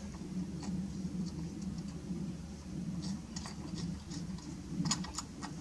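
A few light metal clicks and taps from a mounting bracket, bolt and washers being handled as the bracket is refitted to an LED light bar, over a steady low hum.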